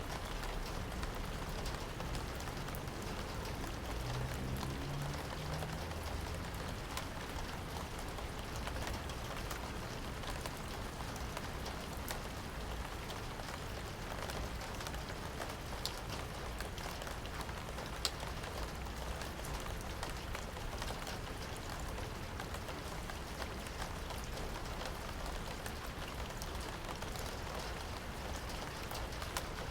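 Steady rain falling, with scattered sharper drop hits on a surface, one of them clearly louder about two-thirds of the way through.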